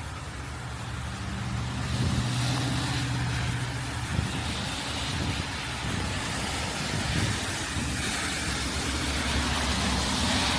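A road vehicle's engine running with tyre and road noise, growing louder about two seconds in.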